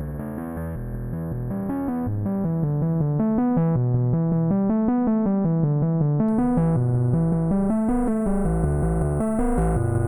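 Synthesizer sequence played through the Glitchmachines Subvert distortion plugin: a fast run of short notes that grows louder over the first few seconds. A high-pitched buzzy layer comes in about six seconds in.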